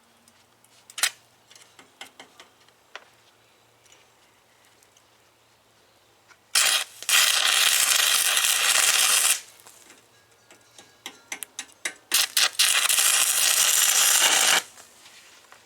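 Stick-welding arc fed by three car batteries: two runs of steady arc crackle, each about two and a half seconds, with scattered clicks of the rod scratching to strike the arc before them. The current can't be controlled and runs too hot, burning the rod away within seconds.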